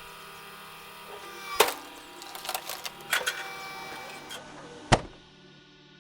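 Wood splitter motor humming steadily, with sharp knocks and cracks as wood is worked; the loudest knock comes about five seconds in, after which the sound drops away.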